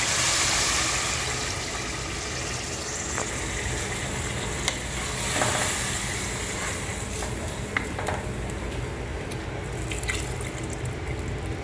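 Water poured from a jug into a pressure cooker of hot fried beef masala, splashing and sizzling as it hits the pot, then stirred with a wooden spoon that gives a few sharp knocks against the aluminium pot; more water is poured in near the end.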